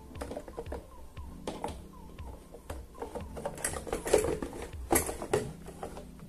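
Hard plastic parts of a stand mixer knocking and clicking together as the bowl is set on the base and the mixer head is fitted onto its stand, with the loudest knocks about three and a half to five seconds in. The mixer is not running.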